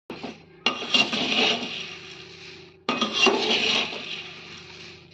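A spoon stirring puffed rice in a pan as it roasts, scraping the pan twice about two seconds apart, each stroke starting sharply and fading over a second or two.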